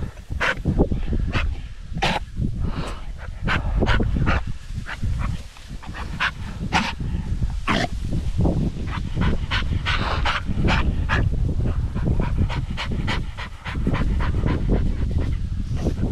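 A hunting dog panting hard and irregularly, winded after retrieving a shot pheasant, over a low rumble of wind on the microphone.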